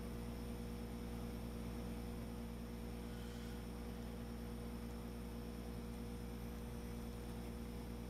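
Steady low hum with a faint hiss underneath, unchanging throughout.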